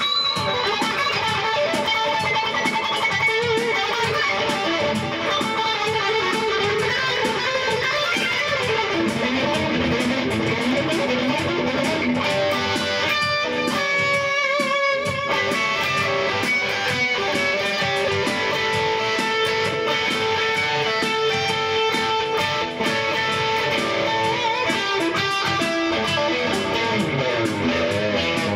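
Electric guitar playing a rock tune, with several long held notes in the second half.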